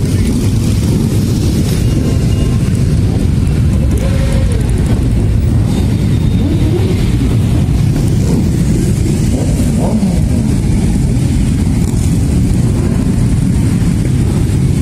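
A long stream of motorcycles riding past at low speed, their many engines running together loudly and steadily, with single bikes now and then revving up and dropping back in pitch.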